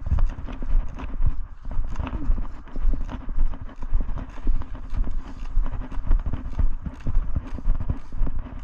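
Steady walking footsteps, about two a second, heard as low thumps with rustling close to the microphone.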